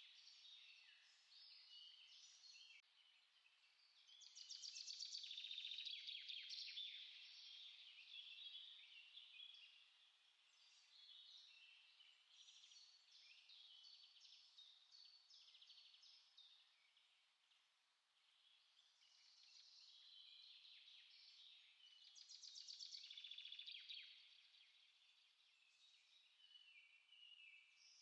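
Small songbirds chirping and singing, several songs overlapping, faint overall; twice a bird's rapid trill swells louder, about five seconds in and again a few seconds before the end.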